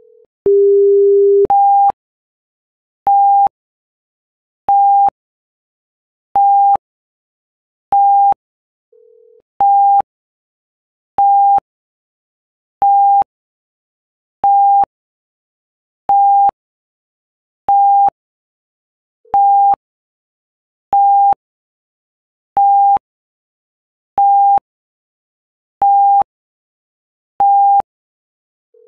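Electronic alarm beeping from a seismic-monitoring station's earthquake alert: a lower tone of about a second, then a steady run of short high beeps about every 1.6 seconds, seventeen in all, signalling a detected earthquake. A faint low blip sounds about every ten seconds.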